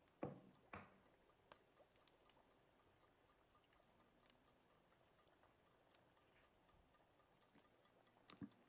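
Near silence with faint kitchen handling noises: two soft knocks in the first second and a couple of small clicks near the end.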